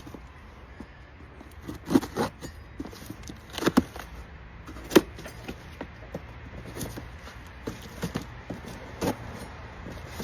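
Packaging of a filter set being opened and handled: rustling with a few scattered sharp knocks and clicks, the loudest about five seconds in.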